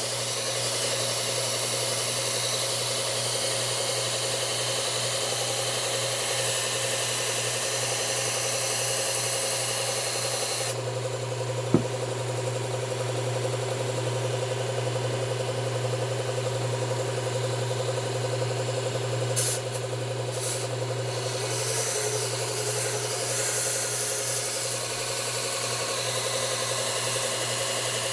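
Belt sharpener running with a steady low hum while a garden pruning-tool blade is ground against the belt, a hissing grind that falls away about eleven seconds in. A sharp click comes just after, and a brief knock about halfway through.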